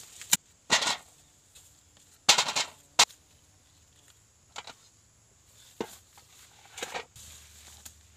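Sharp knocks and short scrapes of a hand digging tool striking and working the soil among plants, several loud ones in the first three seconds, then a few fainter ones.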